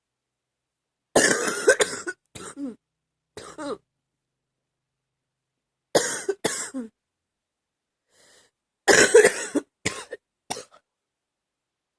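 A woman's chesty cough, in three bouts a few seconds apart: each a loud cough followed by one or two smaller ones.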